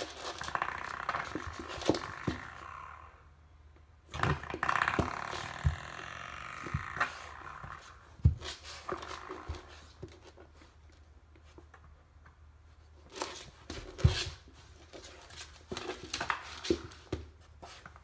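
A coiled-spring door stop being pawed and bitten by a puppy: repeated sharp twangs and knocks, a couple of them followed by a ringing buzz that fades over two or three seconds.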